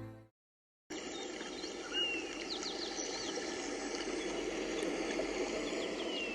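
Steady outdoor rushing ambience with a few short bird chirps over it. Gentle background music fades out right at the start, and the ambience comes in after a brief gap.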